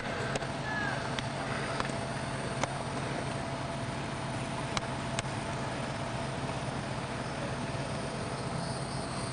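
Steady outdoor background noise with a low hum, broken by a few faint sharp clicks in the first five seconds or so.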